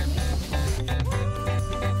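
Background music with a repeating bass line; long held notes come in about a second in.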